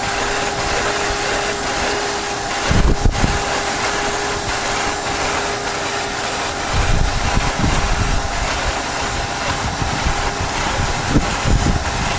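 Small car-type shop vac running steadily with a whining motor tone. Its hose nozzle is being drawn across an evaporative cooler pad, sucking off loosened calcium scale. A few low bumps come about three seconds in, around seven to eight seconds, and near the end.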